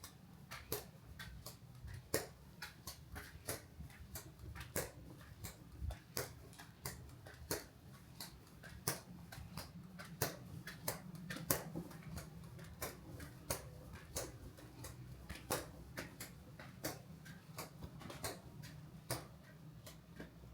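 Irregular sharp clicks and ticks of varying strength, about two or three a second, over a low steady hum.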